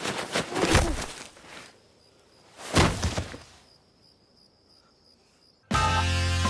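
Scuffling, then a single heavy thump about three seconds in as a body falls onto the ground. Crickets chirp faintly after it, and organ music starts near the end.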